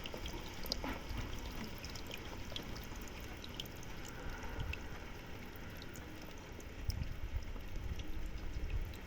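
Raindrops falling into a pool: a steady patter on the water surface with many separate small drip plinks, and a few low thumps from about seven seconds in.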